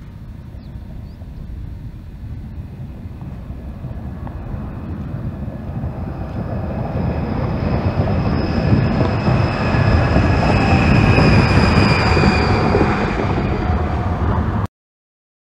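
Toyota Project Portal hydrogen fuel cell semi truck passing by at highway speed on its electric drive: a rising rumble of tyres and drivetrain, with a steady high whine on top, with no diesel engine note. It grows loudest about eleven seconds in and cuts off suddenly near the end.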